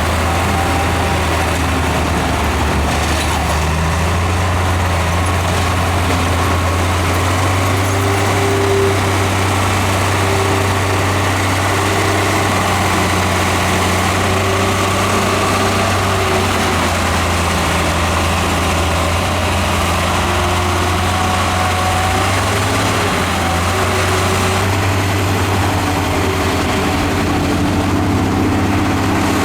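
Heavy diesel engine of earthmoving equipment running steadily with a deep, even drone, its pitch drifting slightly up and down.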